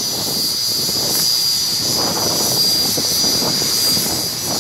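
Fighter jet engines idling with a steady high-pitched whine over a rushing hiss.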